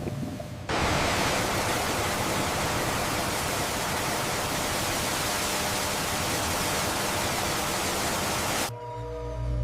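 A steady, even hiss of rushing noise that starts abruptly about a second in and cuts off abruptly near the end.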